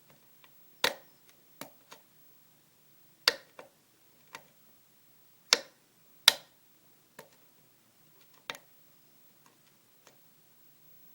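Pin-tumbler lock being single-pin picked under heavy tension: about a dozen sharp, irregular clicks as pins set, four of them much louder than the rest.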